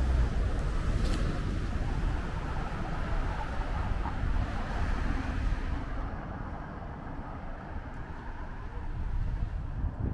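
Street traffic noise: a car's rumble, loudest at the start and easing off over the next several seconds into a steady low traffic hum. There is a sharp click about a second in.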